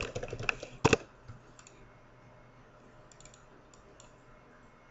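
Computer keyboard keystrokes, a quick run of clicks in the first second, followed by a few faint mouse clicks.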